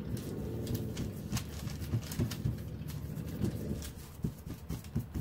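Hands patting and pressing a soft cauliflower-and-cheese pizza crust flat on a parchment-lined metal baking sheet. Irregular soft pats and paper crinkles, with a few duller thumps near the end.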